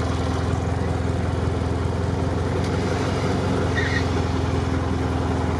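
A vehicle engine running at a steady, unchanging speed, with its low hum holding constant throughout.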